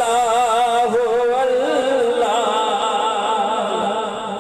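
A man singing a naat unaccompanied, drawing out long wavering melismatic phrases. The voice fades near the end.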